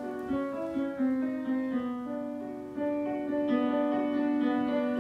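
Piano playing in the next room, heard through a hollow-core door: a run of notes, several sounding together, with a lot of sound getting through.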